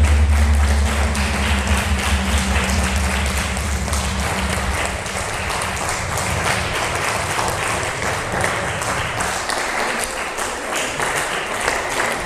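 Audience applauding, a dense patter of many hands clapping. A low drone underneath fades out about five seconds in.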